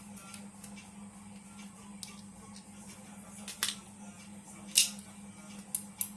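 A few sharp clicks and taps of small tools handling electronic parts on a workbench, the loudest about three and a half and five seconds in, over a steady low hum.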